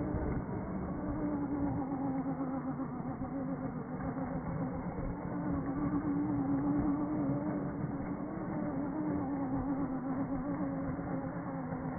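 Small radio-controlled buggy's motor whining at a fairly steady pitch that dips and rises a little as the car spins in tight circles on concrete, over a rough noise of tyres scrubbing the surface.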